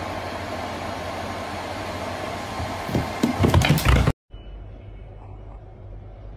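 Steady room noise with a low hum, broken by a few irregular thumps and knocks about three to four seconds in. It then drops out and gives way to a quieter steady hiss.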